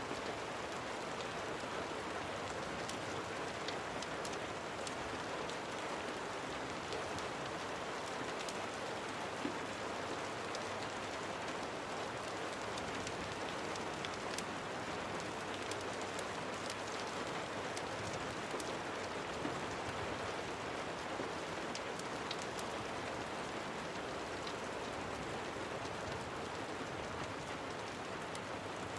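Steady rain falling: an even, unbroken wash of sound with scattered sharp ticks.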